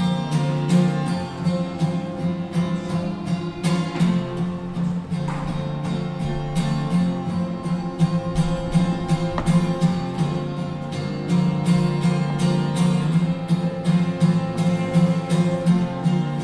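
Solo acoustic piano playing: a quick, even run of notes over steady sustained low notes.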